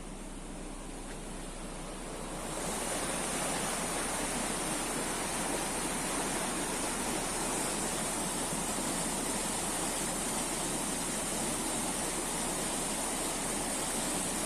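Steady rain falling, its hiss growing louder about two and a half seconds in and then holding steady.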